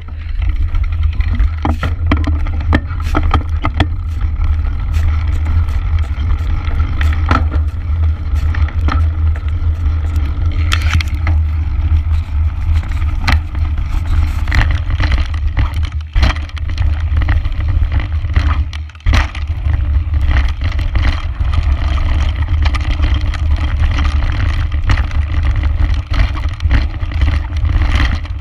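Mountain bike ridden fast over a loose, stony dirt track, heard through a chest-mounted action camera: a steady low wind rumble on the microphone, tyre noise on gravel, and frequent sharp knocks and rattles from the bike over stones.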